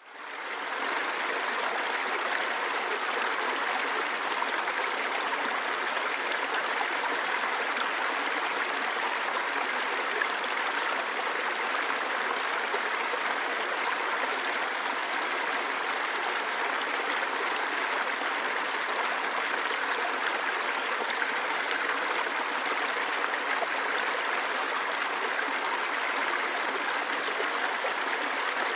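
Running water flowing steadily with an even rushing noise, fading in over the first second.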